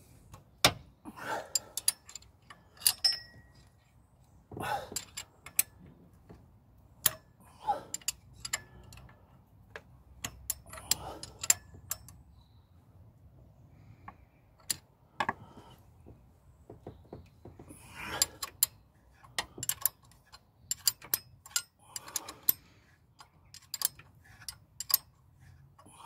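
Irregular metallic clicks and clinks of a ring spanner working on the camshaft sprocket bolts of a Rover K-series engine as the cams are turned by hand with the timing belt off.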